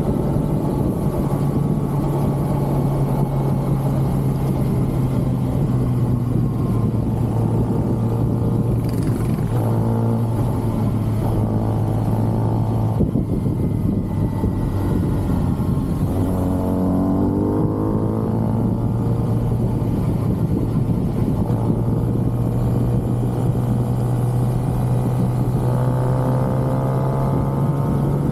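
2023 Kawasaki ZX-6R's inline-four engine, stock exhaust, running at steady riding revs. Its pitch rises under throttle about nine seconds in and again around sixteen to eighteen seconds, with a drop in between near thirteen seconds.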